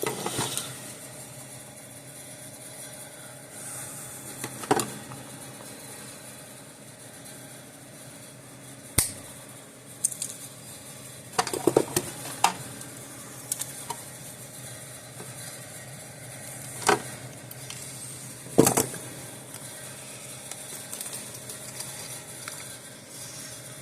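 Scattered clicks and knocks of small parts and hand tools being handled while the wiring of a fence energizer is worked on: about seven sharp taps spread over the stretch, with a low steady background between them.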